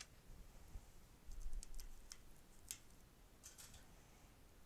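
Faint scattered clicks and rustles of insulated wires and plastic twist-on wire nuts being handled and twisted together by hand.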